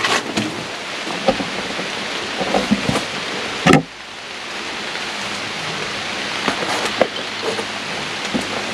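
Steady rain hiss with scattered drop-like ticks, and one sharp knock about four seconds in.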